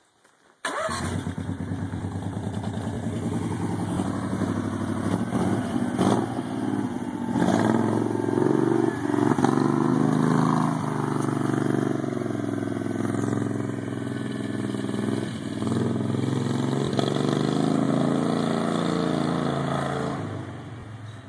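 Golf cart's engine running as the cart is driven, its pitch rising and falling with the throttle, fading away near the end as the cart moves off.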